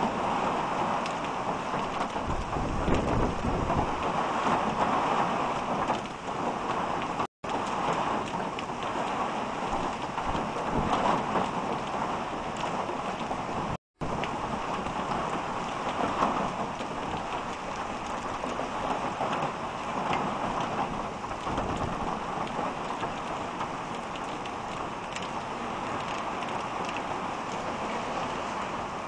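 Heavy rain pouring down onto a wet street, with gusts of strong wind rumbling on the microphone, heaviest in the first few seconds. The sound cuts out briefly twice.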